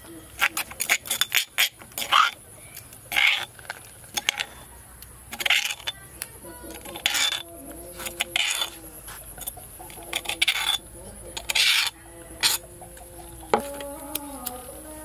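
Irregular sharp clinks and clatters, about a dozen, of objects being handled. In the last second or so, chickens start clucking.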